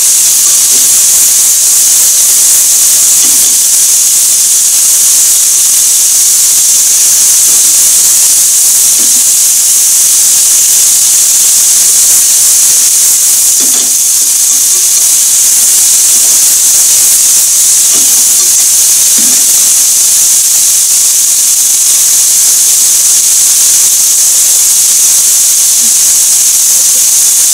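Chicken pieces and zucchini slices sizzling in a frying pan, a loud steady hiss, with a few faint knocks here and there.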